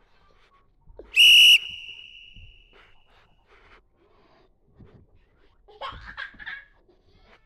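A whistle blows once, about a second in: loud and steady for about half a second, leaving a fainter tone at the same pitch that fades away over the next second or so. Near the end a child's voice sounds briefly.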